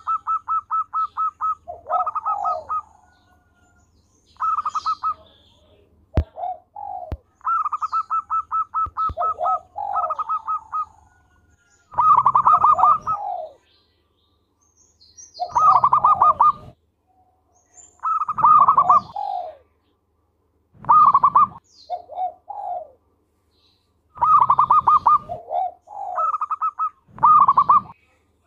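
Zebra dove (perkutut) cooing: loud phrases every two to three seconds, each a quick run of short staccato notes followed by a couple of lower coos.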